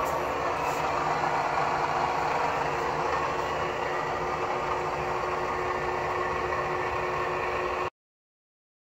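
Tree Tool and Die Works vertical lathe running under its Fairbanks Morse induction motor: a steady machine hum with constant tones, which cuts off suddenly near the end.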